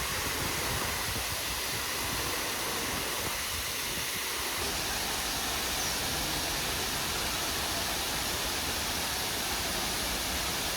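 Waterfall pouring close by: a steady, even rush of falling water.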